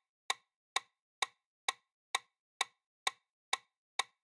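Quiz countdown timer ticking sound effect: short, sharp clock-like ticks about twice a second, evenly spaced, with silence between.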